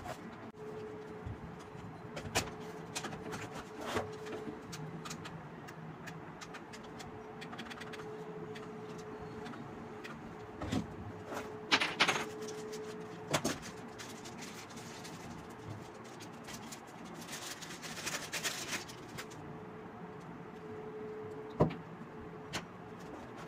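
Plastic and cardboard toy packaging being handled: scattered sharp clicks and knocks, with a longer rustle about three-quarters of the way through. A faint steady hum runs underneath.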